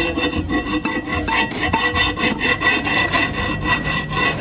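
The splined steel shaft of a Komatsu HM400 damper scraping and rasping metal on metal as it is worked down into the bearing in the damper body's hub. The rubbing is continuous, with rapid irregular clicks.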